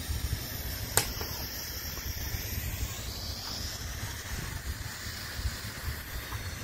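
Wind buffeting the microphone as a steady low rumble, over a faint hiss, with a single sharp click about a second in.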